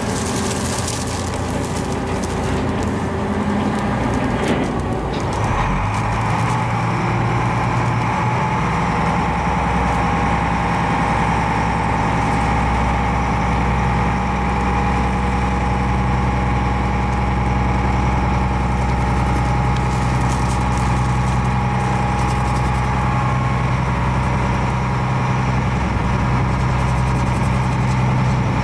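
Small car ferry's diesel engine running steadily: a low, even hum with a steady whine above it, settling in about five seconds in.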